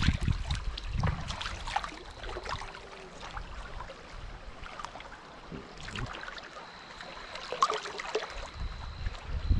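Shallow river water sloshing as hands push a sturgeon off the bank. Then muffled water noise with irregular small clicks and crackles as the microphone goes under the surface.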